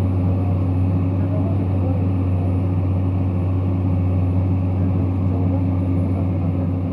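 Komatsu PC210 excavator's diesel engine running with a steady low drone.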